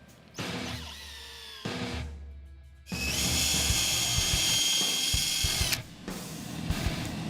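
Power drill running steadily for nearly three seconds, starting about three seconds in and stopping abruptly, as it pre-drills hardwood deck boards or drives deck fasteners. Background guitar music plays before it.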